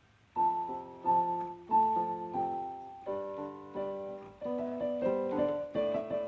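Background piano music: a gentle run of chords and melody notes, each struck about every half second to a second and fading away.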